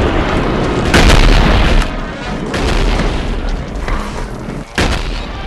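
Anime stomach-growl sound effect: a loud, low rumble, strongest in the first two seconds, over background music.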